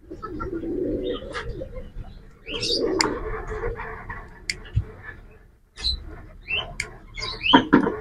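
Pigeons cooing and small birds chirping, the chirps thickening in the second half, with a couple of sharp clicks in the middle.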